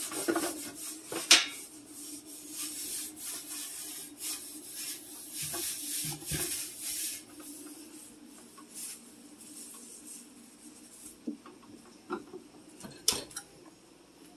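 A stovetop being wiped and scrubbed by hand. There are several seconds of uneven rubbing, with a sharp knock about a second in and a couple of clinks of kitchen hardware near the end, over a steady low hum.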